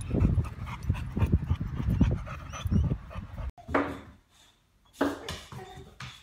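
Wind rumbling on the phone's microphone, with soft knocks, for the first few seconds; after an abrupt cut, a boxer dog at a closed door makes two short vocal sounds, about a second apart.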